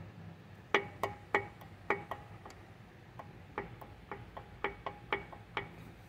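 About seventeen sharp metallic clacks, uneven and ringing briefly: a Ford Escape EcoBoost connecting rod being rocked by hand on its crankshaft journal with the oil pan off. The free play it knocks through is the sign of a rod bearing that is completely worn away.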